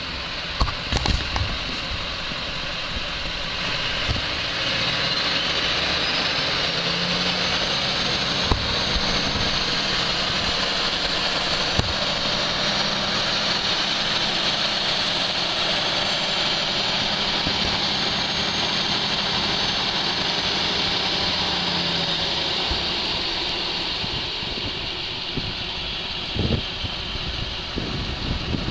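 Duramax turbodiesel V8 running in a 1955 GMC M211 6x6 truck, with a high turbo whistle over the engine note. The engine is brought up to a higher steady speed about five seconds in and eases back down near the end, with a couple of brief knocks near the start and near the end.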